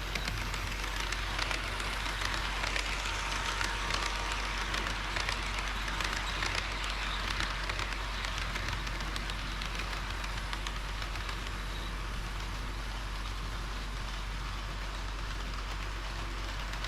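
HO-scale model train rolling along the track: a steady hiss of small wheels on rail, thick with fast fine clicks, over a steady low hum.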